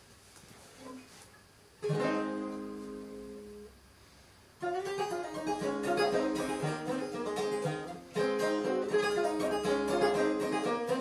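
Home-made gas-can banjo, its body a metal can: one chord struck about two seconds in and left to ring out, then, after a short pause, a brisk clawhammer tune with quick, closely spaced notes.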